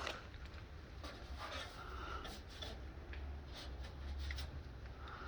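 Faint rustling and light scraping with a few soft ticks over a low steady hum; no distinct event stands out.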